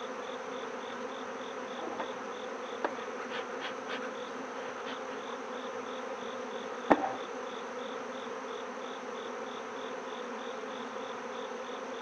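Honeybees at an open hive, a steady dense buzzing hum. A single sharp knock comes about seven seconds in.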